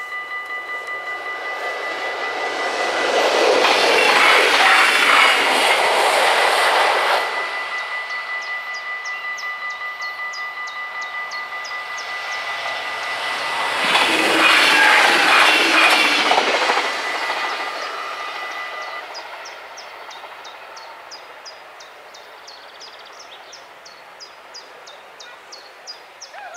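Level-crossing bells ringing rapidly while two Stadler GTW electric trains pass, one about two seconds in and the other about thirteen seconds in. Each pass is a rush of wheels on rail lasting some five seconds. The bells stop about nineteen seconds in as the crossing clears.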